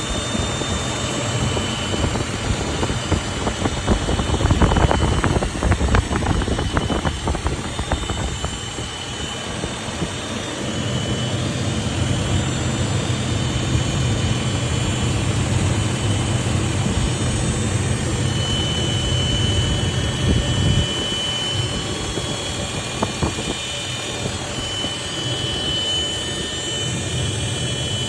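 Toyota Land Cruiser 80 series running, with a thin, steady high whine over the engine sound that comes and goes and is clearest in the second half.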